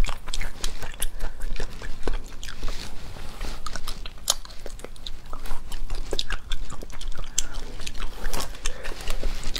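Close-miked eating of spicy sea snails in their shells: wet sucking and slurping to draw the meat out, with chewing and many sharp clicks and smacks coming irregularly.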